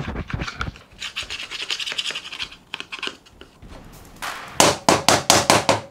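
Caked oily grime being scraped and scrubbed off a chainsaw's front handlebar with a rag, scratchy rubbing that ends in a quick run of about seven hard scrubbing strokes.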